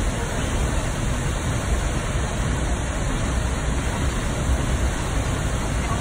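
Minnehaha Falls, a tall waterfall, rushing steadily as it plunges into the churning pool below, with a deep low rumble under the hiss of the water.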